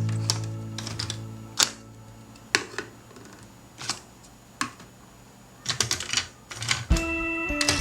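Sharp, irregular clicks, a few at a time with a quick cluster about six seconds in, over a low held note that fades away; a simple stepping music tune starts near the end.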